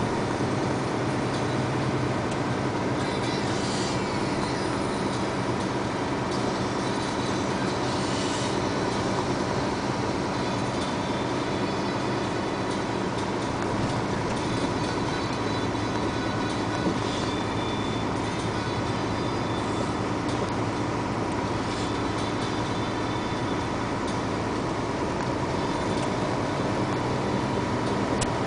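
Steady engine drone and tyre noise on a wet road, heard from inside the cab of a moving vehicle.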